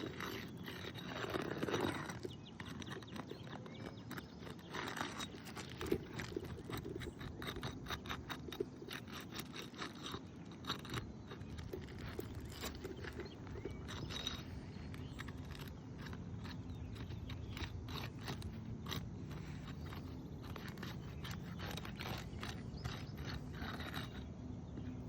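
A paint scraper working under asphalt roof shingles, breaking their sealant strips loose with repeated short crackling scrapes.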